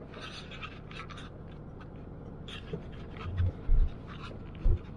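Car driving slowly along a rough, narrow country lane, heard from inside the cabin: a steady low rumble with scratchy rustling, and several heavy low thumps in the last second and a half as the car goes over bumps.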